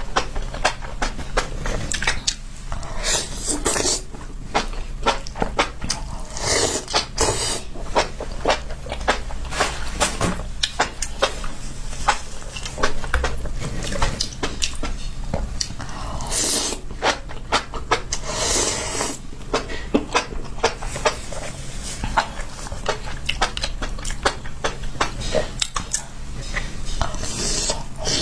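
Chewing of spicy enoki mushrooms: a dense run of fast, irregular wet clicks, with a few louder noisy bursts spread through.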